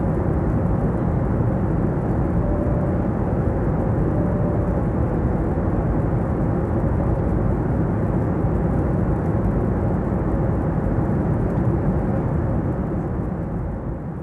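Steady, low cabin noise of a jet airliner at cruise: the rushing hum of engines and airflow, with a faint steady tone above it. It begins to fade near the end.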